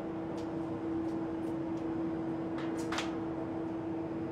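Steady machine hum holding one steady tone, with a few faint light clicks and a short hiss about three seconds in.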